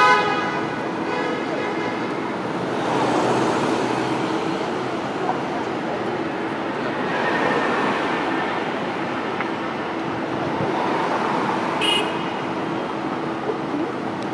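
Tram rolling slowly toward the stop along street track amid steady city traffic noise, with a steady low hum underneath. A brief high ring sounds about twelve seconds in.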